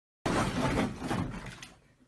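Bathwater splashing and sloshing as a small dog thrashes in a foamy tub; it is loudest in the first second and dies away near the end.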